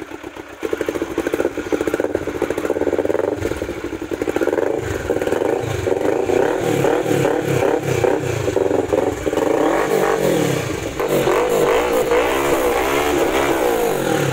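Kawasaki Versys 650's parallel-twin engine running through a newly fitted Orione slip-on exhaust, picking up about half a second in and revved up and down, with the pitch rising and falling several times near the end.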